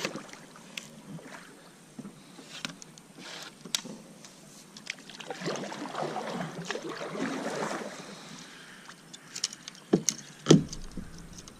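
Handling noise on a fishing kayak: scattered light clicks and knocks of gear against the hull, a few seconds of busier rustling and water noise in the middle, and two sharp knocks near the end, the second the loudest.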